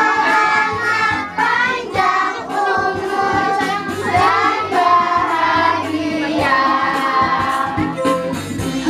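A group of children singing a song together over instrumental backing music.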